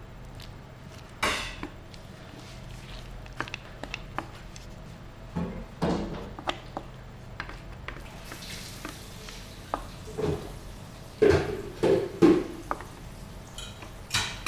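Wooden spatula stirring chicken adobo in a metal pot, scraping and knocking against the pan in irregular strokes. The strokes are loudest in a cluster near the end, over a steady low hum.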